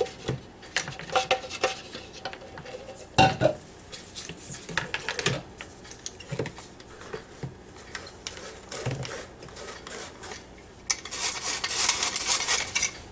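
Stainless steel hand flour sifter being worked: scattered metallic taps and clicks, then near the end a steady rasping as the sifter works the flour through its screen.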